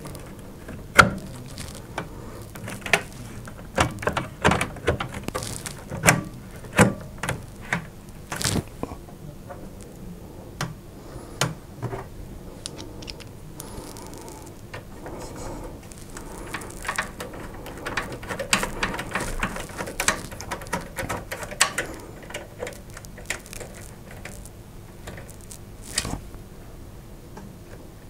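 Handling noise from fitting a Sapphire RX 470 graphics card into a steel PC case: a run of sharp clicks and knocks from the card's metal bracket and the case's slot covers, then a stretch of softer rustling and light clicking from hands and cables inside the case, with one more click near the end.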